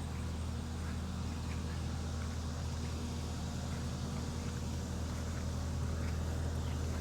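Skid steer engine running steadily with a constant low hum while its hydraulic boom holds a roof truss up.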